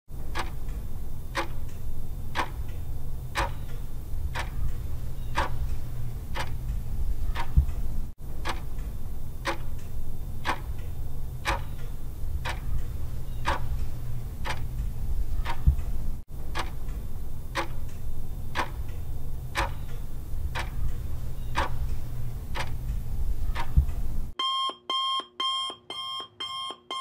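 Countdown timer sound effect: a clock ticking about twice a second over a steady low hum, which switches about 24 seconds in to a rapid electronic alarm beeping about three times a second as the countdown runs out.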